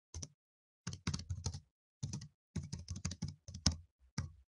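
Typing on a computer keyboard: a single keystroke near the start, then quick runs of key clicks with short pauses between them from about a second in.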